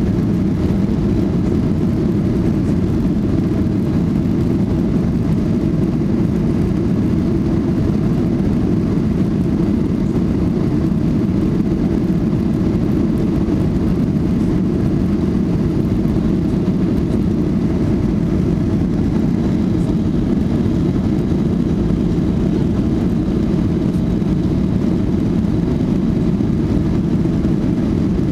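Boeing 737 cabin noise heard from a window seat over the wing: engine and runway rumble on the takeoff roll, a steady low rumble with no change in pitch.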